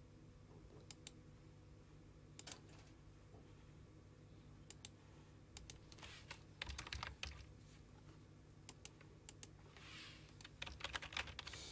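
Computer keyboard typing and mouse clicks: a few single clicks spaced out over the first half, then bursts of rapid keystrokes about six seconds in and again near the end. A faint low steady hum runs underneath.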